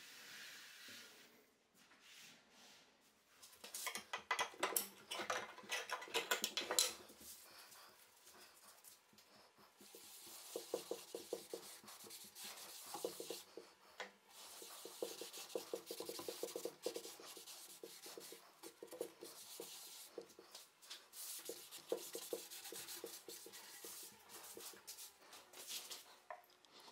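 A cloth rag rubbing wood finishing oil into a wooden tabletop in quick, repeated back-and-forth strokes. About four seconds in there are a few seconds of louder, faster, scratchier strokes.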